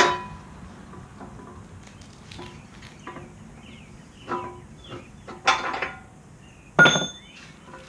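Loose steel backhoe parts, pins and washer shims, clinking and clanking against each other as they are handled: four separate ringing metal clinks, the loudest near the end.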